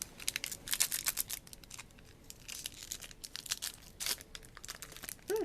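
Plastic packaging on a Magic: The Gathering pack crinkling and tearing as it is unwrapped, in irregular crackly rustles.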